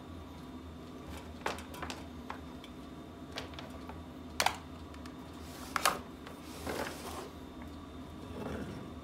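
Clicks, knocks and scuffing of gear being handled on a wooden workbench as a jump starter and its clamp leads are packed into a zip-up carry case and the case is closed. Two sharp knocks about halfway through are the loudest, and everything sits over a steady low hum.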